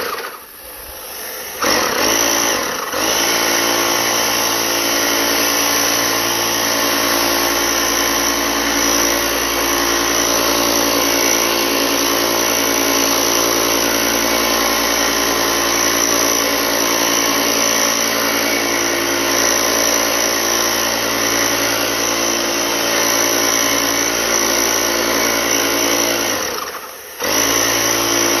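Motor-driven sprayer running steadily while applying disinfectant solution. It cuts out briefly just after the start and again near the end, then picks back up.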